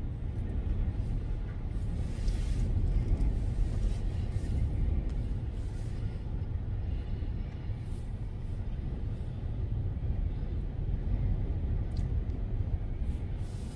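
Strong gusty wind buffeting the phone's microphone as a low, uneven rumble, over the surf of storm waves breaking on a lake shore.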